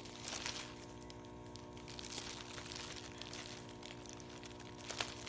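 Parchment paper liners crinkling as they are handled, with scattered crackles and a sharper tick about five seconds in, over a steady low hum.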